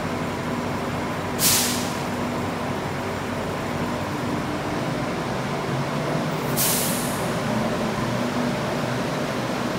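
Adtranz C801-series light rail vehicle at the platform: a steady mechanical hum with two short, sharp hisses of released air about five seconds apart, the first about a second and a half in.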